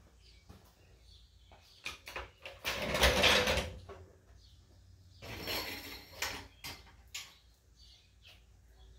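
Scattered knocks and two scraping bursts of about a second each, the louder one about three seconds in and the other just past five seconds: furniture being shifted about, as when a chair is fetched and dragged.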